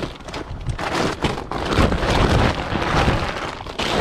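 Wind buffeting the microphone: a loud, gusty rumble that swells and dips.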